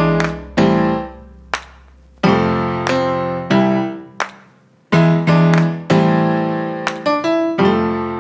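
Background music: piano notes and chords struck one after another, each left to ring and fade, over a low held bass tone that stops about two seconds in.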